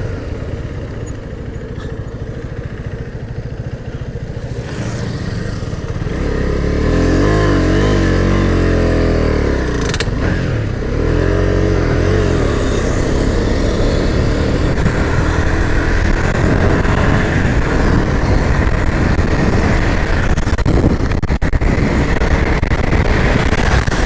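Motorcycle engine running at highway speed over a steady road rumble. From about six seconds in, the engine note rises and falls as the throttle is opened and eased.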